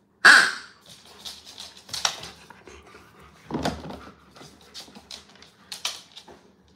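A golden retriever and a German shepherd moving about right beside the microphone: one short, loud sound from a dog just after the start, then scattered short snuffling and scuffling noises with a heavier bump about halfway through.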